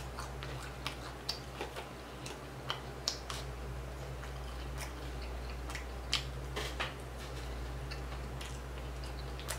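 A person chewing a mouthful of a four-patty burger close to the microphone: soft, irregular wet mouth clicks and smacks over a steady low hum.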